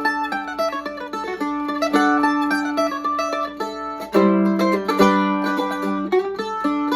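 Handmade flat-top mandolin, with a Sitka spruce top, ladder bracing and curly maple back and sides, picked in a quick fiddle-tune melody. About four seconds in, a louder chord is struck and rings before the single-note picking resumes.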